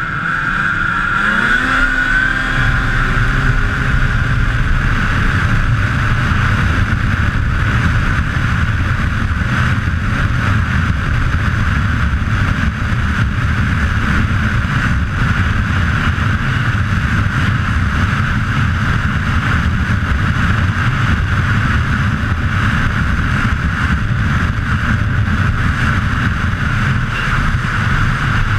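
Snowmobile engine revving up over the first couple of seconds as the sled accelerates, then running steadily at high speed.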